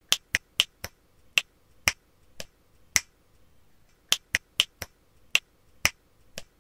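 Finger snaps in a rhythmic pattern: four quick snaps about a quarter second apart, then slower ones about half a second apart, the pattern starting over about four seconds in.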